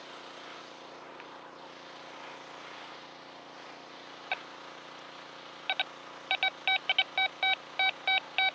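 Quest Q20 metal detector beeping at a target: one short beep about four seconds in, then from about six seconds a quick run of repeated short beeps as the coil is swept over buried metal, over a steady faint hiss.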